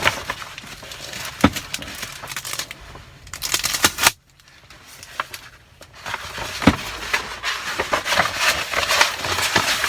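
Scotch tape and a cardboard sheet being handled: crackling and crinkling with sharp clicks, a denser rasping stretch about three to four seconds in, then a short lull before the crackling resumes.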